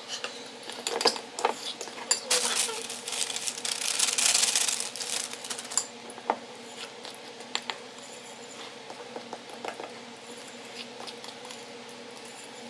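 Metal spoon scraping and clinking against a ceramic mixing bowl as thick brownie batter is stirred. There is a louder stretch of steady scraping a couple of seconds in, then softer, scattered clinks.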